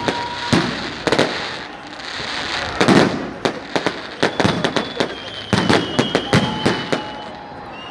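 Fireworks going off in rapid succession: many sharp bangs and crackles, thickest in the second half, with a few drawn-out whistles.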